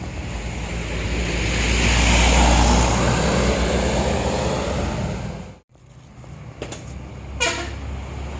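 A large bus passing close by: engine hum and road noise swell to a peak about two seconds in and fade, then the sound cuts off abruptly. Quieter traffic follows, with a short horn toot near the end.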